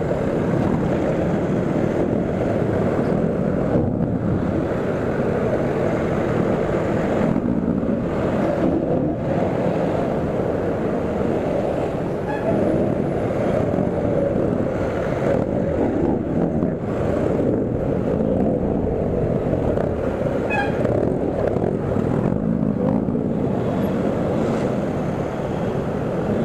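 Steady wind rush on an action camera's microphone while riding through city traffic, mixed with the engines of the motorcycles, jeepneys and cars close around.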